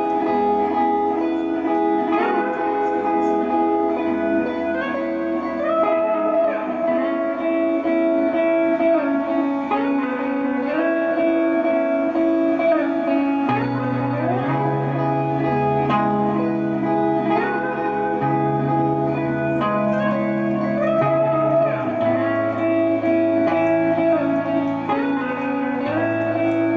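Live instrumental music: a plucked string lead plays notes that slide up into long held pitches over a steady drone. A low bass line comes in about halfway through.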